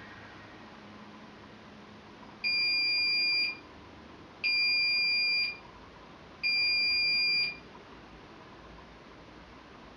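Washing machine beeping at the end of its programme: three steady, high beeps, each about a second long, two seconds apart, signalling that the wash cycle is finished.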